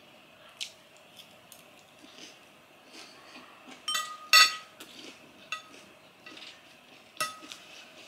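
Metal spoon and fork clinking and scraping against a ceramic plate while eating. Scattered sharp clinks that ring briefly; the loudest come about four seconds in and again near the end.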